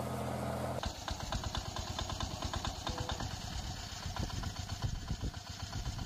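Mini tractor engines running. A steady engine hum gives way, about a second in, to a different small engine running with a rapid, uneven beat.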